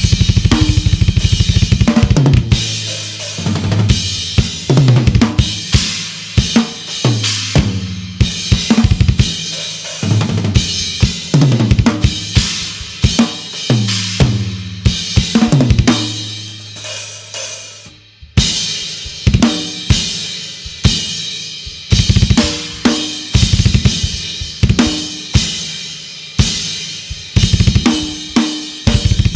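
Drum kit played hard: rapid bass drum strokes at the start and again near the end, and in between snare, tom and cymbal hits in a steady beat. There is a brief break about two thirds of the way through.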